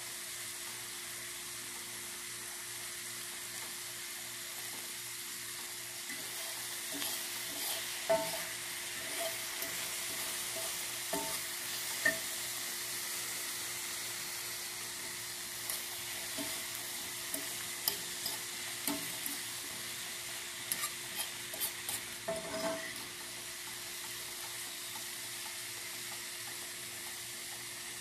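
Chopped onions and bell peppers sizzling steadily in a skillet, with a metal fork clicking and scraping against the pan as they are stirred, mostly in the middle stretch.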